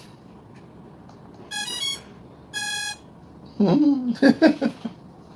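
Two short electronic beeps about a second apart, each a steady single-pitched tone, followed near the end by a brief stretch of a man's voice.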